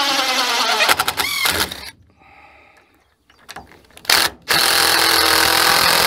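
Cordless drill driving a screw at an angle into wood framing: the motor's pitch drops as it bogs under load, it stops just under two seconds in, then runs again steadily from about four seconds. The screw is a toenail that pulls the top plate over to close a gap of about an eighth of an inch.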